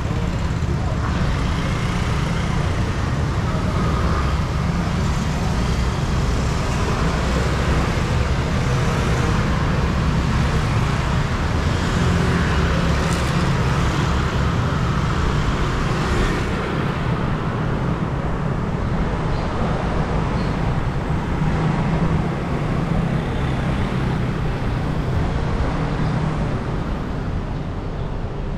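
City street traffic: a steady rumble of passing cars and other motor vehicles, engines and tyres running continuously. The high hiss eases a little about halfway through.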